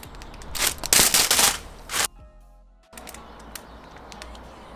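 Rustling and crinkling of plastic packaging and thin foam rubber sheets being handled, in a few loud bursts during the first two seconds, then fainter handling clicks after a brief dropout.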